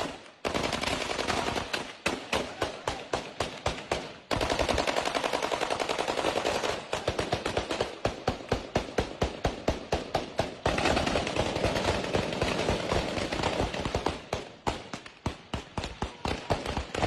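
Heavy automatic gunfire: rapid shots several a second, merging into continuous fire for a few seconds at a time, about four seconds in and again past the ten-second mark.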